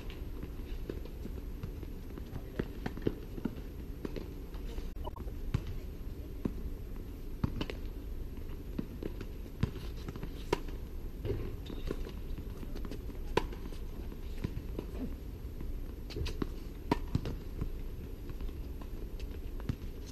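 Tennis rally: sharp pops of racquets striking the ball and lighter taps of the ball bouncing on the hard court, every second or two, the loudest near the start and about two-thirds of the way in, over a steady low background hum.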